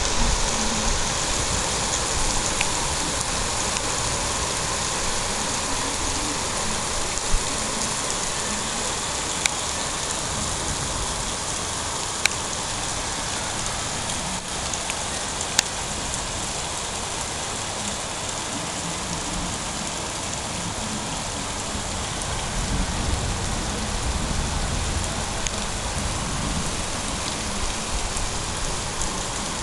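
Heavy rain falling steadily on the town, a constant hiss with a few sharp ticks standing out in the middle stretch.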